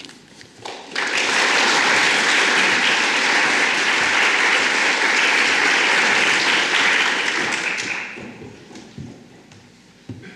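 Audience applauding: the clapping starts about a second in, holds steady, and dies away after about seven seconds.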